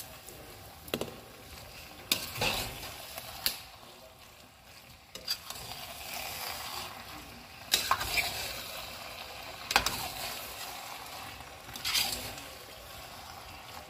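Spoon stirring pasta in a pan on the stove, the utensil knocking and scraping against the pan about six times over a low, steady sizzle.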